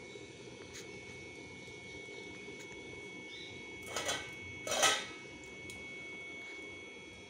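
Electric blower of a 4-inch wood-fired rocket stove running steadily with the forced-draught fire, a low steady rush with a thin steady whine above it. Two short bursts of noise about four and five seconds in.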